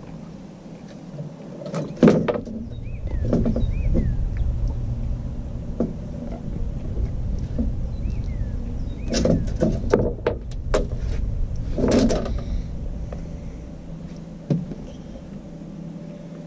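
Sharp knocks and rattles in the boat as a freshly caught channel catfish is unhooked and handled, with the loudest knocks about two seconds in, twice around nine to ten seconds and again around twelve seconds, over a steady low rumble.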